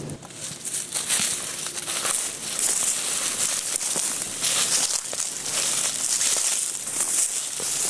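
Footsteps and clothing pushing through dry weeds and leaf litter: a continuous crunching, crackling rustle with irregular snaps of stems.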